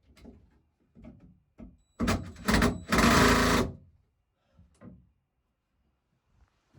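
Power screwdriver driving screws into wood in two short bursts of about a second each, about two seconds in. It is loud, and the small shed amplifies the sound.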